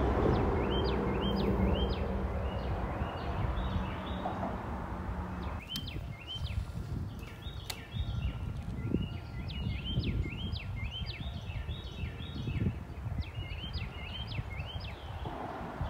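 Small birds chirping over and over in quick short notes, over a low rumbling noise that fades out about five seconds in.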